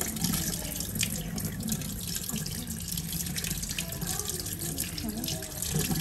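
Kitchen tap running steadily into a stainless steel sink, the stream splashing over a soaked sea cucumber held in the hands as it is rinsed.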